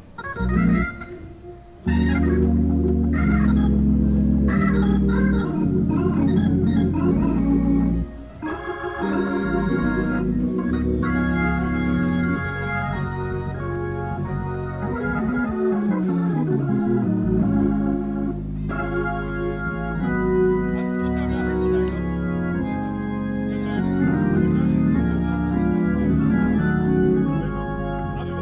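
Hammond C3 tonewheel organ playing gospel chords: short choppy chords for the first couple of seconds, then full held chords over a steady bass, with a falling run down into the bass about halfway through.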